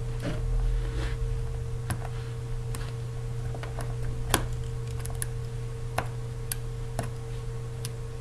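Light, scattered clicks and taps of a plastic spudging tool against the opened iPhone 4S's internal parts as the antenna connector is pried loose, about a dozen in all, the sharpest about four seconds in. A steady low hum runs underneath.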